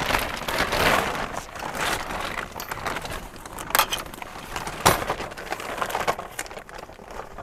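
Camouflage plastic tarp rustling and crinkling as it is handled and unhooked, with two sharp clicks a little after the middle as metal S-hooks come off their hangers.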